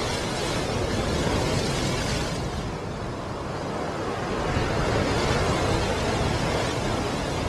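Waves breaking on a rocky shore: a continuous rushing wash of surf that swells and eases.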